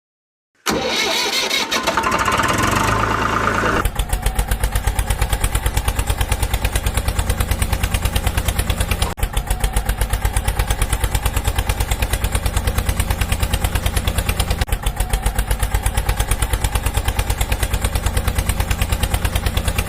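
Engine starting, then settling into a fast, steady chugging idle about four seconds in. It cuts off abruptly near the end.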